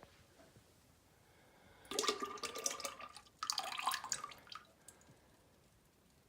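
Water running or pouring in two short bursts, each a little over a second long, with a short break between them.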